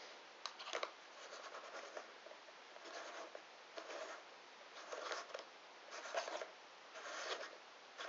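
Rubber eyeguard being worked onto the eyepiece of an AN/PVS-4 night vision scope: a series of short rubbing, scraping sounds, about one a second.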